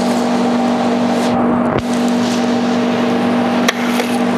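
Multi-flavour soda fountain dispenser pouring fizzing soda into a glass, an even hiss over a steady machine hum. The hiss thins briefly near the middle, and there is one sharp click near the end.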